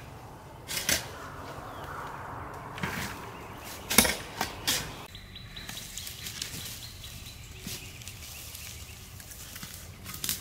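Dry leaf litter rustling and crunching with scattered knocks and scrapes as crumbly rotted wood is gathered into plastic buckets, then footsteps through the leaves as the buckets are carried off. The loudest sound is a sharp knock about four seconds in.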